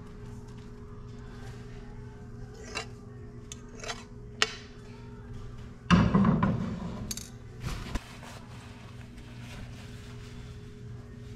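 A few light clinks and knocks of a metal frying pan and serving utensil, then a loud clunk about six seconds in and a smaller knock just before eight, as cooked taco meat is served from the pan.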